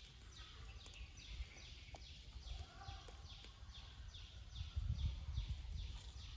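A small creature's high, falling chirp, repeated steadily about two to three times a second, over a low rumble that swells after the midpoint.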